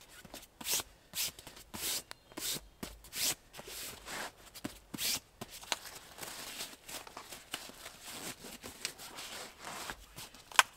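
Fabric gear rustling and swishing in short strokes as it is rolled up and packed by hand, turning to a denser crinkly rustle in the second half. A single sharp click comes near the end.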